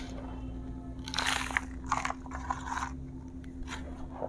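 Hands scooping and rubbing gritty potting soil on a tray, a cluster of short crunching scrapes between about one and three seconds in.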